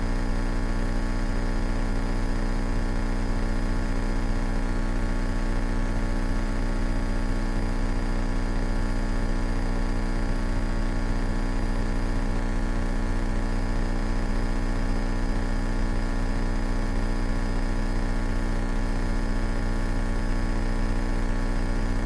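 Steady drone of a 1970 Cessna 172K's four-cylinder Lycoming O-320 engine and propeller in cruise flight, heard inside the cockpit, holding an even pitch and level.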